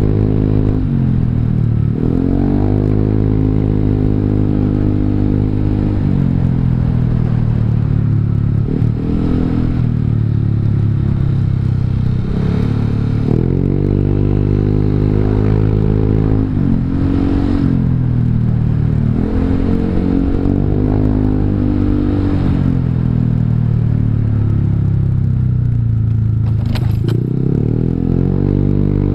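Honda Vario 150 scooter's single-cylinder engine through an aftermarket R9 Alpha Series exhaust, being ridden. The exhaust note rises with the throttle and drops back again, over and over.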